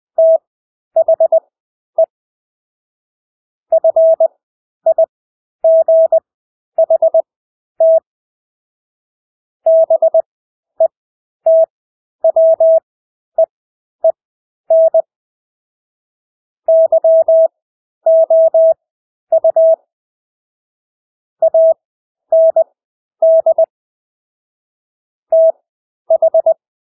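Morse code (CW) sent as a single steady tone keyed on and off in short and long elements at 20 words per minute, with extra-long Farnsworth gaps between characters, so groups of dits and dahs are separated by silences of a second or more.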